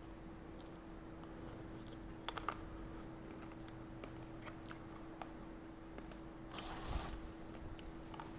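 Quiet sounds of eating noodle soup: a few sharp clicks about two seconds in and a short noisy burst near the end, over a steady low hum.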